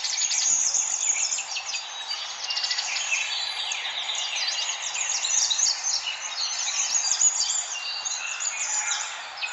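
Many small birds chirping and twittering together in a dense, continuous chorus of short, quick calls.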